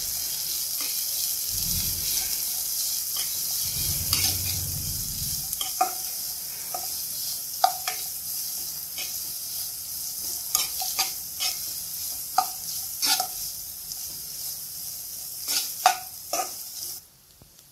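Sliced onion, garlic, ginger and green chillies sizzling in hot ghee in a non-stick pan, stirred with a spatula that clicks against the pan now and then. The sizzle cuts off suddenly near the end.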